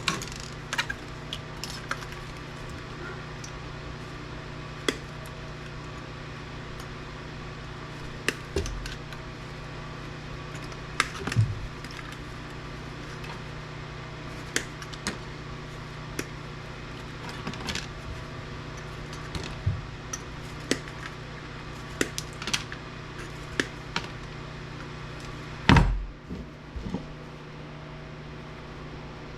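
Scattered clicks, taps and clinks of tools and loose parts being handled while an APC battery backup unit is taken apart, over a steady low hum. A louder knock comes near the end.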